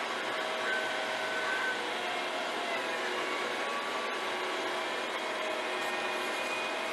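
Fortschritt ZT tractor's diesel engine running steadily, a constant drone with faint wavering whining tones over it.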